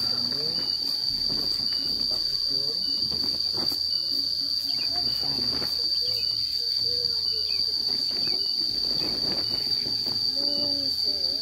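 Insects buzzing in a steady, high-pitched drone. Under it, a plastic tarpaulin rustles and flaps as it is unfolded and spread on concrete.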